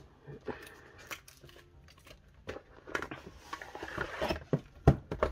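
Paper and card rustling and sliding as a photobook and film strips are pulled out of a stiff paper envelope folder and handled, with scattered light clicks and a thump about five seconds in.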